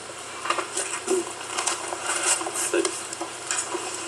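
Papers rustling and being shuffled on a hearing-room table, with scattered small clicks and ticks.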